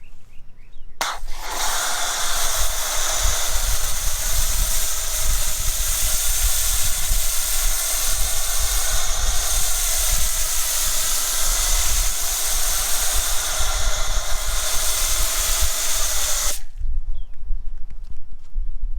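Pressure washer spraying through a foam cannon: a loud, steady hiss of water and foam that starts about a second in, cuts off suddenly near the end as the trigger is released, and starts again just after.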